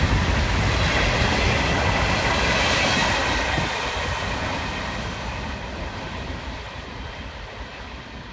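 Tail end of a long CSX freight train, container-laden intermodal well cars, rolling past on the rails, its wheel-on-rail noise fading steadily as the train moves away.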